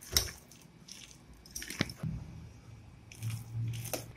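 A hand squeezing and kneading a thick paste of ground red lentils, onion and spices in a steel bowl, with irregular wet squelches.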